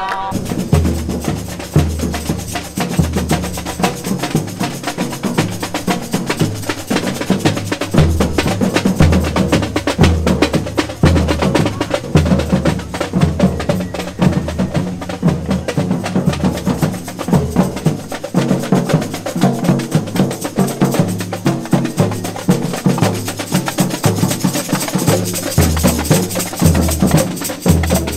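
A marching street drum band plays a steady, driving repeated rhythm on large bass drums and smaller hand-carried drums.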